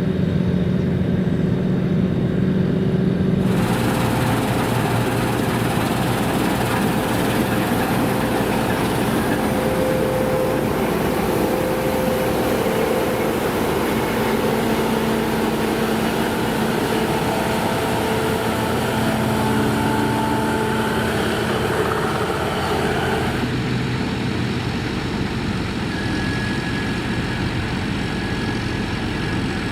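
Claas Lexion combine harvesters running steadily at work, a continuous diesel drone with a few steady tones. From about four seconds in until about twenty-four seconds in, a broad hiss joins the drone, starting and stopping abruptly.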